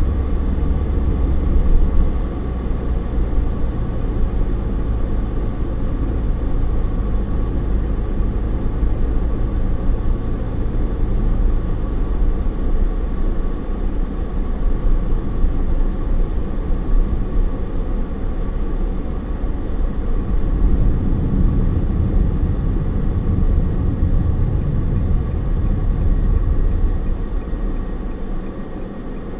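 Road and engine noise inside a moving car's cabin: a steady low rumble of tyres and engine that grows quieter near the end.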